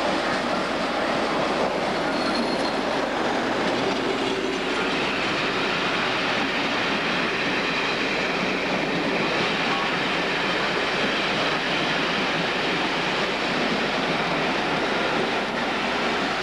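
Class 37 diesel locomotive 37401 passing close at the head of a train arriving into a station, then its passenger coaches rolling past on the rails. Steady, loud train noise throughout.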